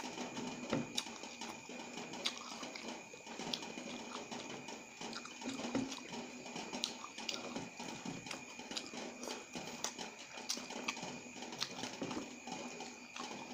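Close-up eating sounds of noodles and fresh tamarind leaves: wet chewing, slurps and lip smacks, with many small sharp mouth clicks.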